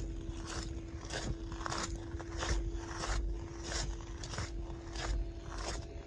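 Footsteps crunching on loose gravel at a walking pace, about one and a half to two steps a second, over a faint steady hum.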